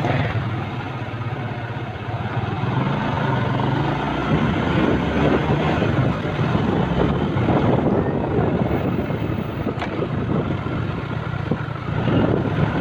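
Vehicle engine running steadily while driving, with road and wind noise.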